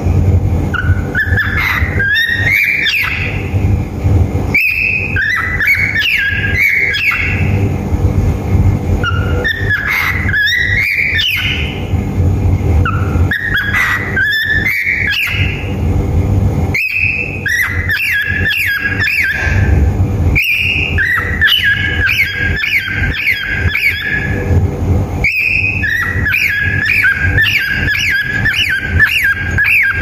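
Cockatiel whistling and chirping in repeated runs of rising and falling notes, with short pauses between them, over a steady low rumble.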